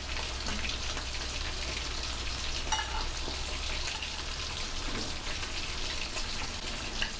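Food frying in hot oil: a steady sizzle with fine crackling, and a single metallic clink of a utensil about three seconds in.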